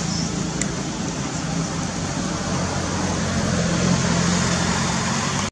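Steady outdoor background noise: an even hiss with a faint low hum underneath and a single faint click about half a second in.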